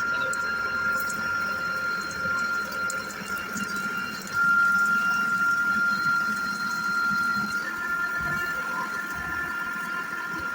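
CNC router spindle running at speed with a steady high whine, getting louder about four seconds in; right at the end the whine drops in pitch.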